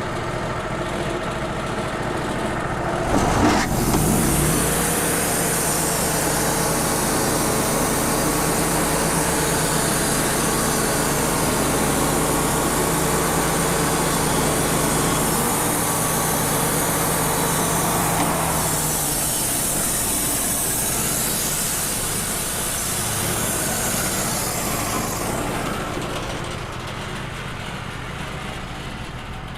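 Wood-Mizer LT35 portable band sawmill running. Its engine picks up a few seconds in, and the band blade then cuts through a soft maple log with a steady high hiss for about twenty seconds. Near the end the cutting hiss fades while the engine keeps running.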